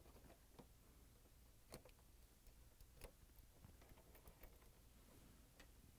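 Near silence, with a few faint clicks from a wire terminal being worked out of a plastic connector plug.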